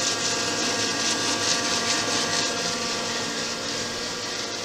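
Gardner 2H30-30 double disc grinder running with both of its 30 hp three-phase spindle motors on. It makes a steady machine hum, with several steady tones over a broad hiss.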